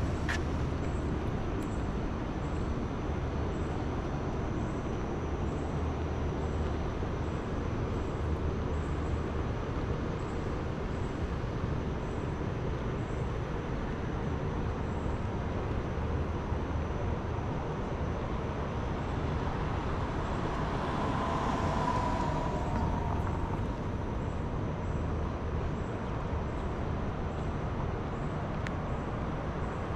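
Outdoor street ambience beside a road: a steady hum of traffic, with a vehicle passing more loudly about two-thirds of the way through.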